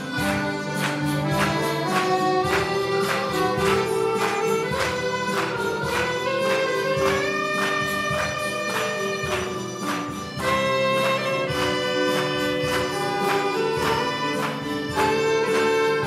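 Plucked-string ensemble of acoustic guitars and mandolins playing a hymn: steady strummed chords about twice a second under a stepping melody line, with a short drop in volume about ten seconds in.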